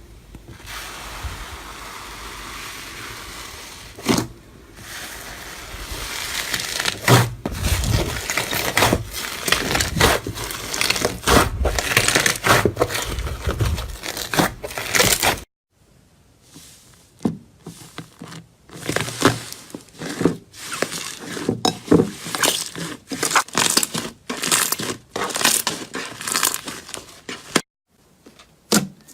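Crunchy slime pressed, squeezed and pulled apart by hand, making dense crackling and crinkling with many sharp clicks. About halfway through the sound changes to a sparser run of separate crunches and pops.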